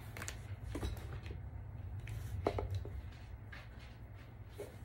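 Cardboard shipping box being handled and worked open: a few short, light knocks and scrapes of cardboard, about five spread through, over a steady low hum.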